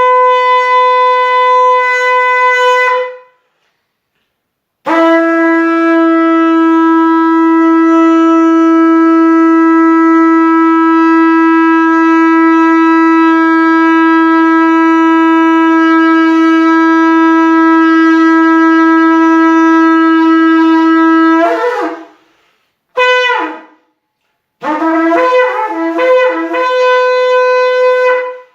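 Shofar blasts: a held note that stops about three seconds in, then one very long, steady, lower note lasting about sixteen seconds, a short blast, and near the end a run of quick broken notes.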